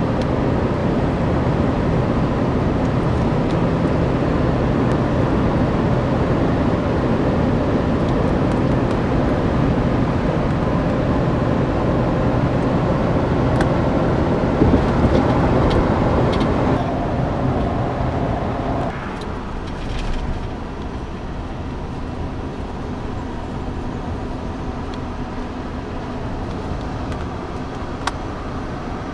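Steady road and engine noise inside a moving car, a dense rumble that gets quieter about two-thirds of the way through, with a brief knock about halfway.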